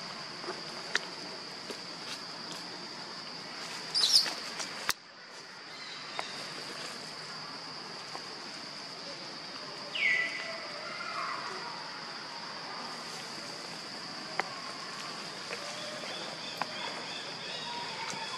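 A steady high-pitched insect drone, with a short shrill call about four seconds in, a cry falling in pitch about ten seconds in, and a few faint clicks.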